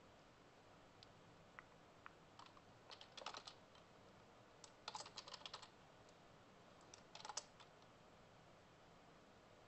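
Faint computer keyboard typing in three short bursts of keystrokes, about three, five and seven seconds in.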